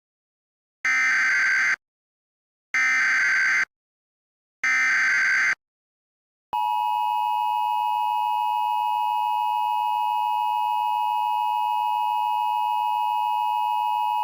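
Emergency Alert System tones: three short bursts of the SAME digital header, each a warbling data screech just under a second long and about two seconds apart, then the steady two-tone EAS attention signal (853 and 960 Hz) held for about eight seconds.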